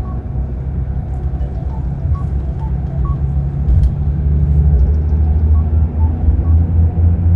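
Diesel engine of a Scania K360 double-deck coach running with a low, steady rumble that grows louder about four seconds in.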